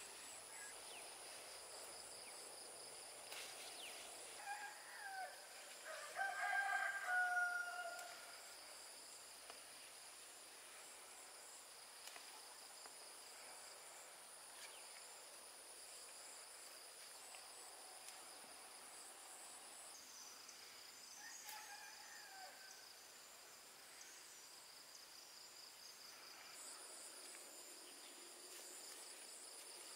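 A rooster crows loudly a few seconds in and again more faintly past the middle, over the steady high chirring of insects.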